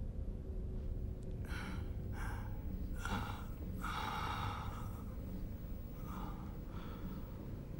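A man breathing hard in short, sharp gasps, about six in a row, as he comes to with his wrists bound, over a low steady rumble.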